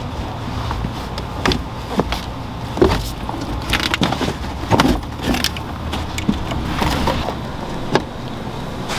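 Moulded SUV floor carpet with its thick recycled-fibre padding being peeled up off the bare floor pan and dragged out: rustling and scraping with many short crackles, snaps and knocks, over a low steady rumble.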